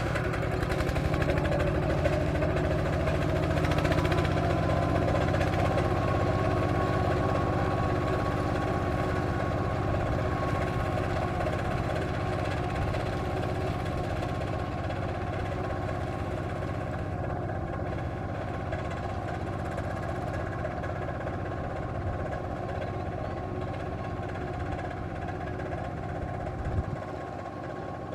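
Engine of a miniature Kubota RT120 power tiller running steadily with even firing pulses, slowly getting a little quieter. There is a single short knock near the end.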